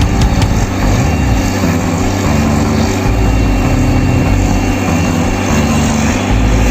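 A vehicle's engine running steadily, carrying the drilling rig along a mountain road.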